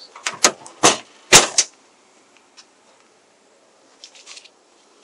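A quick run of clunks, knocks and rustles as gear is handled and moved about in a pickup truck during a search, the loudest clunk about a second and a half in; then quiet, with a faint rustle near the end.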